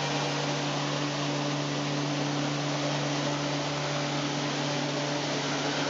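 Hovercraft lift and thrust fans, driven by brushless DC motors, running steadily: a loud, even whir of rushing air over a constant low hum.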